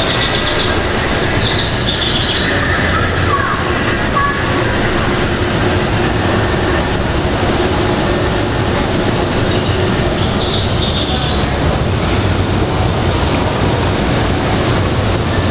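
G scale model train running on the layout: a steady mix of rolling and motor noise, with brief high squeal-like tones about a second in and again about ten seconds in.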